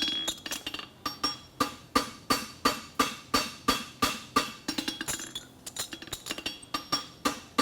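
Hand hammer striking an aluminum bar shoe on a steel anvil in a steady rhythm of about three blows a second, each with a short metallic ring; around the middle the blows turn into lighter, quicker taps.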